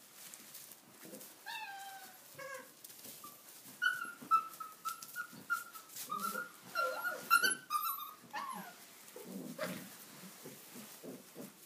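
Tibetan mastiff puppies yelping and whining as they play-fight: two short falling yelps, then one long high whine of about four seconds and another falling yelp, over the rustle of straw.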